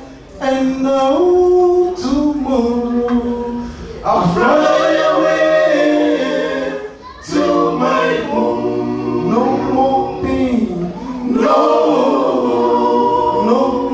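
Male a cappella vocal group singing into microphones, without instruments. A single lead voice is joined by the other voices in harmony about four seconds in.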